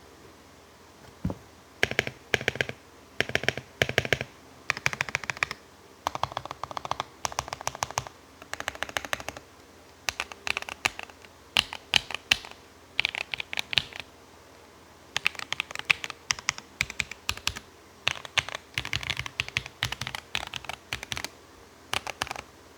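Redragon K599 mechanical keyboard with lubed Akko Vintage White switches, PBT keycaps and tape and foam mods, typed on in quick bursts of keystrokes with short pauses between them. Some bursts, about six to nine seconds in, sound lower and deeper than the rest.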